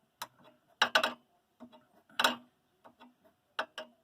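Metal hand tools clicking and tapping against each other and the stabilizer link's nut and stud: about seven sharp, irregular clicks, the loudest around one second and two seconds in.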